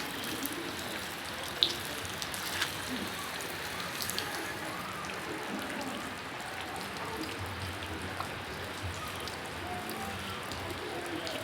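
Steady rainfall, with scattered drops striking a surface as sharp ticks, one louder than the rest about one and a half seconds in.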